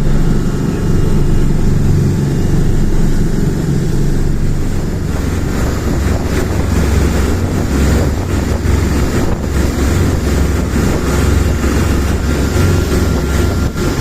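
A boat's engine running steadily with wind on the microphone; about five seconds in, the engine's low note drops lower and stays there.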